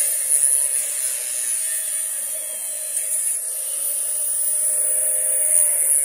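Angle grinder running and cutting into the housing of a burnt-out grinder, a harsh abrasive hiss over the motor's whine. The whine rises, holds and falls in pitch as the cut loads and unloads the motor, most clearly in the second half.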